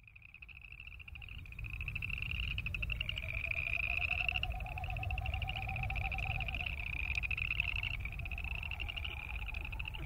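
A chorus of boreal chorus frogs: overlapping rapid, rising trills of a second or two each, one after another, fading in over the first couple of seconds. A lower pulsing sound runs through the middle, over a low rumble.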